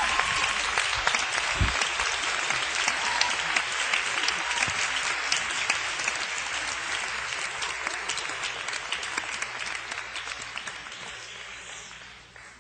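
Audience applauding after a song, many hand claps blending into a dense patter on an audience cassette recording, with a short rising whistle right at the start; the clapping thins and dies away near the end.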